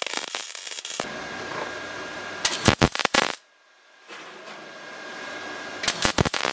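MIG welding arc on steel crackling in short bursts: one ending about a second in, another a little before halfway, a third near the end.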